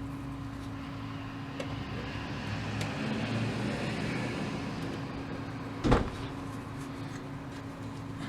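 Workbench sounds over a steady low hum: a rushing noise swells midway, and one sharp knock sounds about six seconds in.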